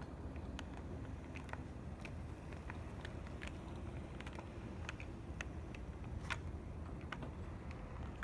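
HO-scale brass model train rolling along metal track: a Tenshodo JNR EF58 electric locomotive with its motor and TA gearing, pulling passenger coaches. Steady low rumble of the motor, gears and wheels, with irregular sharp clicks as the wheels cross rail joints and turnouts.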